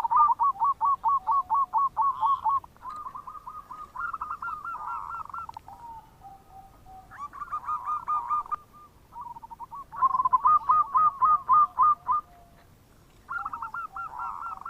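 Zebra dove (perkutut) cooing: about five phrases of quick, rolling notes with short pauses between them.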